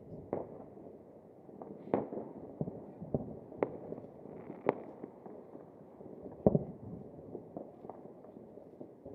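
Fireworks going off: about a dozen sharp, irregularly spaced bangs and pops over steady background noise, the loudest about six and a half seconds in.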